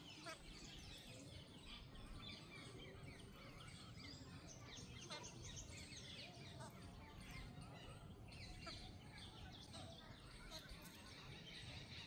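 Faint outdoor ambience of many small birds chirping and calling in short, scattered notes over a low steady background hum.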